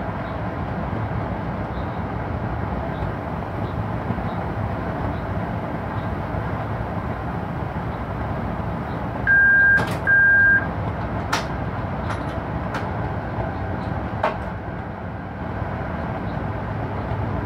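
Cab of an electric locomotive running steadily with a freight train, a constant rumble of the running gear. About ten seconds in, two short identical high beeps sound in a row, followed by a few sharp clicks.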